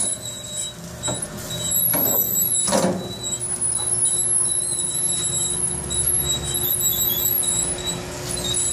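Commercial charcoal rotisserie's spit drive and kitchen exhaust running: a steady mechanical hum and hiss with thin high whines, and a few short squeals about one to three seconds in.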